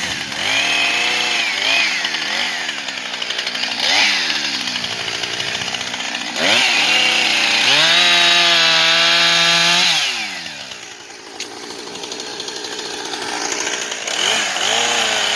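Husqvarna 455 Rancher two-stroke chainsaw, freshly rebuilt with a new piston ring, running and being revved: quick throttle blips near the start and around two and four seconds in, then a long rev held high for a few seconds that drops back to idle about ten seconds in, and another blip near the end.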